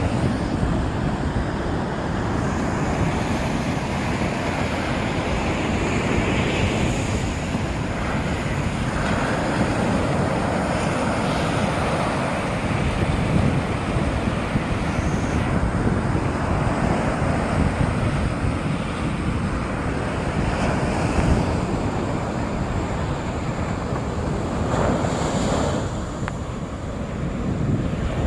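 Sea surf on the beach, waves breaking and washing in a continuous rush that swells every few seconds, with wind rumbling on the microphone.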